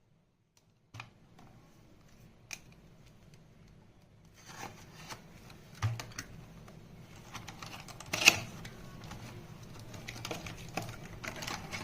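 Hands handling perfume packaging: a few light clicks and taps, then rustling of box and wrapping from about four seconds in, with one sharp click a little past eight seconds.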